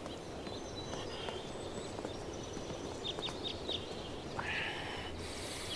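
Quiet outdoor ambience with a few faint, short bird chirps about three seconds in and a brief hiss near the end.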